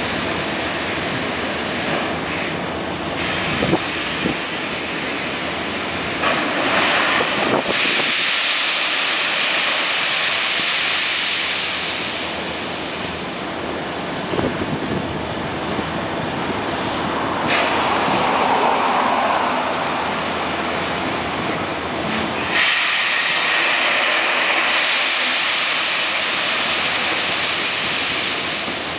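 Copper Basin Railway ore hopper cars rolling past on steel wheels, a continuous grinding noise of wheels on rail with a harsh high hiss that grows louder and fades several times.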